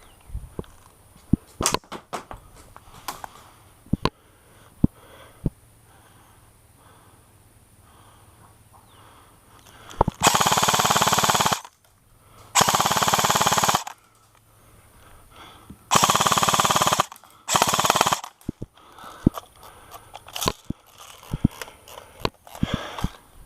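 Airsoft gun firing four full-auto bursts, each about one to one and a half seconds long, in the middle of the stretch, with scattered sharp clicks and snaps before and after.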